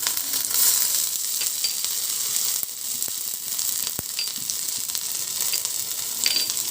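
Chopped garlic and ginger sizzling in hot ghee in a kadhai, a steady frying hiss with a few light clicks.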